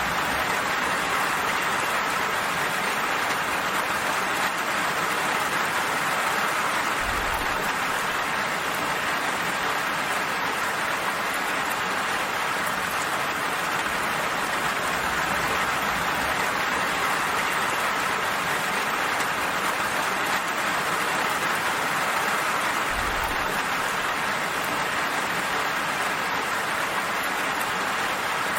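Steady rain falling, an even hiss of drops on surfaces, with two brief low rumbles about seven seconds in and again near the end.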